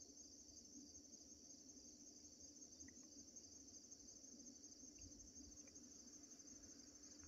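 Faint, steady chorus of field insects chirping in an even pulsing rhythm, high-pitched and unbroken throughout.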